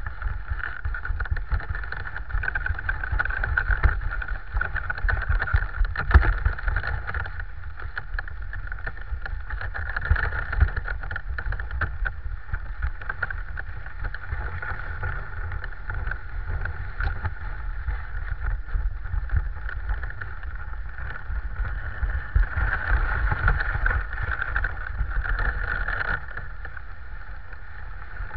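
Dog sled moving over packed snow: a steady scraping hiss from the runners over a low rumble, with frequent small knocks and rattles from the sled.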